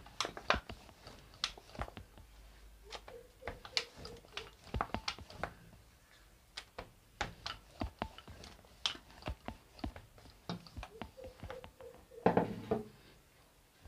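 Wooden rolling pin rolling dough out thin on a steel board: irregular light clicks and knocks as the pin and hands move across the metal, with a short louder scuff near the end as the sheet is handled.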